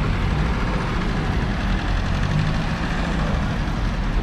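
Car engines idling and creeping forward in slow, congested traffic close by, a steady low hum of several engines.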